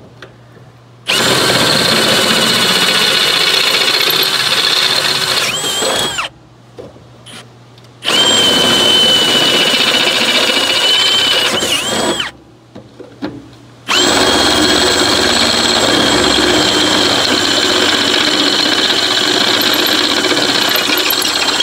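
Ridgid cordless drill with a long twist bit boring through metal, run in three long bursts with a steady high whine. Each burst ends with the motor's pitch sliding as it winds down.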